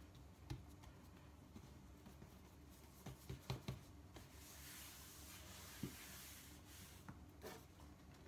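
Faint handling sounds of hands folding and lifting a block of laminated brioche dough on a countertop: a few soft taps and knocks, a quick cluster of them a few seconds in, and a soft rubbing hiss in the middle.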